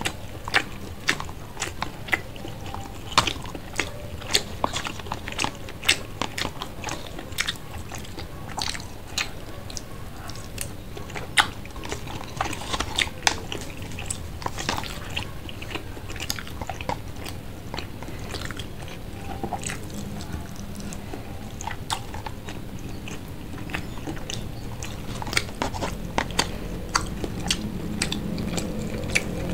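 Close chewing and biting of fried street food eaten off a skewer, with many sharp wet mouth clicks and crunches, several a second, picked up by a clip-on microphone on the eater's shirt.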